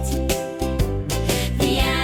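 Upbeat children's music with a steady beat.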